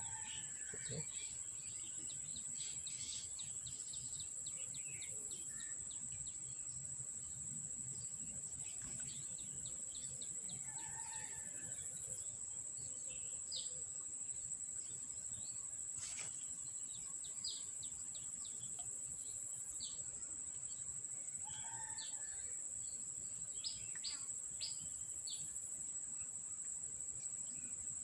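Outdoor countryside ambience: small birds chirping in short repeated notes over a steady high-pitched drone, with a brief louder bird call twice and one sharp click about halfway.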